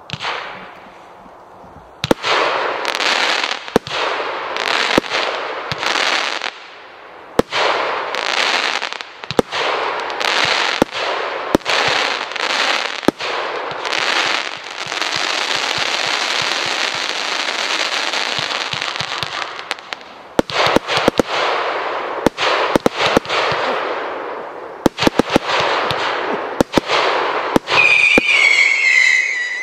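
Celtic Fireworks 'Bring It On' semi-pro firework cake firing: a string of sharp shots, each launching a shot with a hissing tail, with a long steady hiss for several seconds in the middle. Near the end a whistle sounds, falling slightly in pitch.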